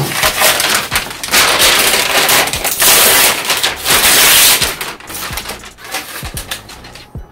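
A large sheet of white paper crinkling and rustling as it is handled close to the microphone. It is loudest for the first four and a half seconds, then eases into lighter rustles and taps.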